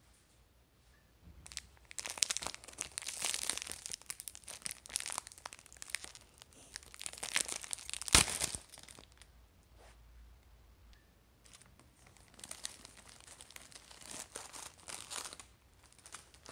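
Foil-lined plastic wrapper of a packet of wafers crinkling and tearing as it is pulled open by hand, with one sharp loud rip about halfway through as the pack comes open. After a quieter pause, the wrapper crinkles again near the end.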